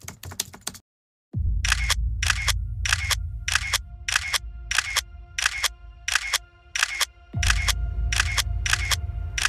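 Camera-shutter click sound effects, about two a second, over a deep music drone with a held tone. The drone drops out for a moment about a second in and comes back with a new low swell about three-quarters of the way through.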